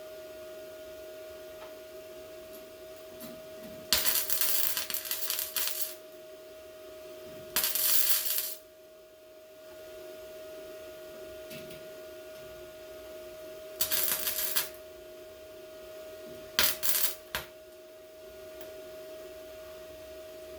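MIG welder laying short tack or stitch welds on sheet metal: four bursts of crackling arc, the first about two seconds long and the others about a second or less, over a steady hum.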